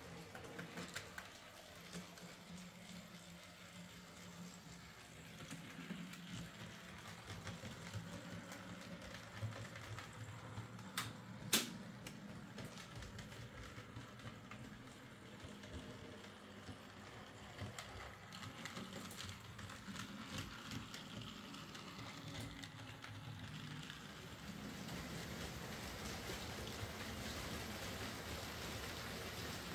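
Bachmann Ivatt 2MT OO gauge model tank locomotive running on its track under DC power, on a test run after a drivetrain repair: a faint steady motor and gear hum with light ticking from the wheels, and one sharp click about eleven seconds in. The hum grows louder near the end.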